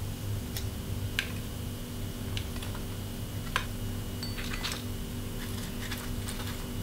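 Light, scattered clicks and soft scrapes of crisp fried wontons being picked off paper towel and set down on a ceramic plate, over a steady low hum.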